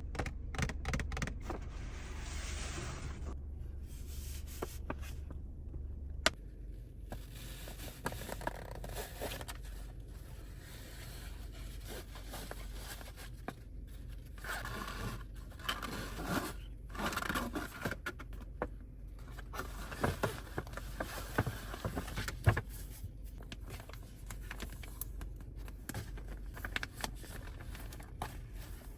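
A handbag and its packaging being handled: irregular scraping and rustling with many small knocks and clicks, over a steady low hum.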